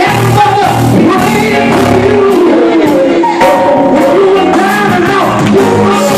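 A man sings gospel into a handheld microphone, loud through the PA, over a live band with drums, guitar and keyboard.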